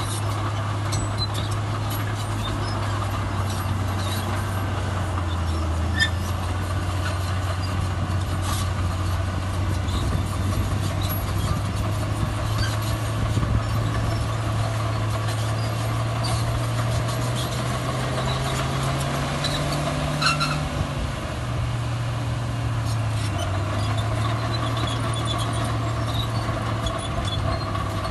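Heavy diesel earthmoving machinery running steadily. The engine pitch rises for a few seconds past the middle and drops back about three-quarters of the way through, with faint clicks throughout.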